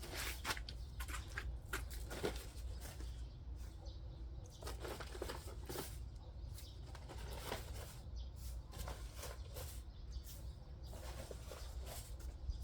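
Irregular rustling and crackling from scattering soil insecticide granules by hand from their bag, over a steady low rumble.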